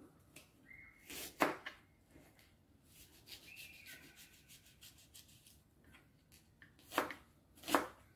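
Kitchen knife finely chopping an onion on a plastic cutting board. Light, scattered cuts run throughout, with a few louder knocks of the blade on the board, one about a second and a half in and two close together near the end.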